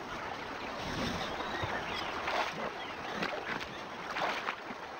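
Water sloshing and splashing as hippos push through a shallow river, with a few louder surges of splashing along the way.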